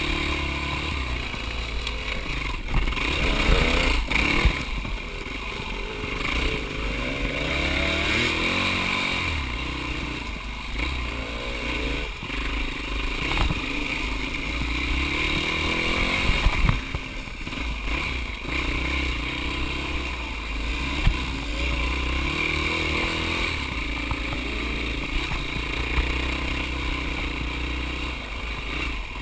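Dirt bike engine running and revving up and down as the bike picks its way along a rough trail, with a few sharp knocks and clatter from the bike over bumps.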